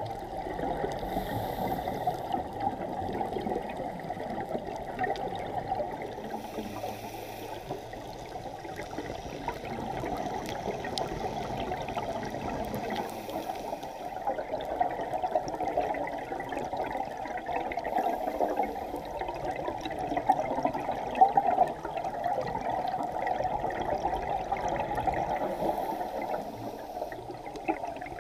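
Underwater sound heard through a camera housing: a steady, muffled crackle of water, with a brief hiss of a scuba diver's exhaled regulator bubbles five times, a few seconds apart.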